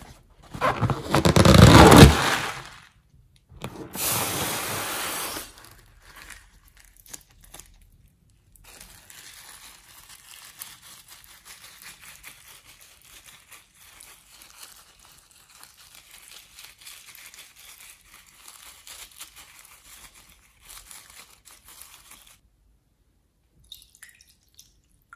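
Slime being squeezed from a balloon and poured into a bowl of glittery slime. There is a loud crackling rush about a second in, a shorter one at around four seconds, and then a long stretch of faint, irregular crackling as the slime flows into the bowl.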